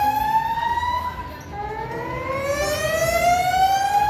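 Building fire alarm sounding a slow rising whoop tone: each sweep climbs steadily in pitch for about three seconds, one ending about a second in and the next beginning shortly after.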